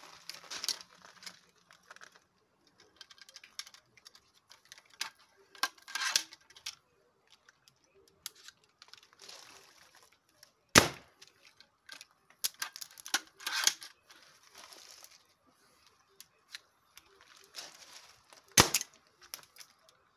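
Two crossbow pistol shots about eight seconds apart, each a sharp crack as a standard bolt strikes the laptop and glances off; the second is a ricochet. Between them come quieter rustling and small clicks of the pistol being handled and reloaded.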